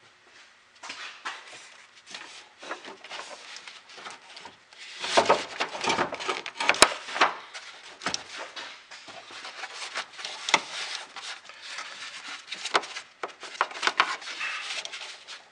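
A car battery being lowered into its engine-bay tray and shifted into place by hand: an irregular run of knocks, clunks and scrapes of the battery case against the tray. The handling is heaviest about five to seven seconds in, with one sharp click near the middle.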